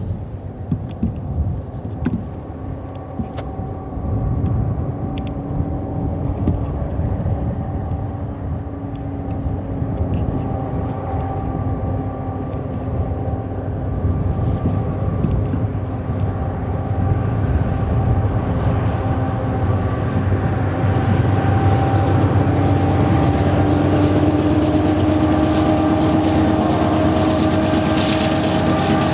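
Several GE AC4400CW diesel-electric freight locomotives under power, their V16 diesels a steady engine hum with a deep rumble underneath. The sound grows louder as the lead units draw near and pass close by, and the engine tone rises slightly in pitch about two-thirds of the way through.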